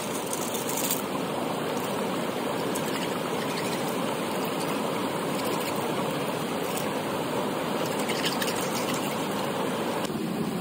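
Shallow rocky stream running steadily over a small cascade, with light splashing as hands rinse snails in the water at the edge.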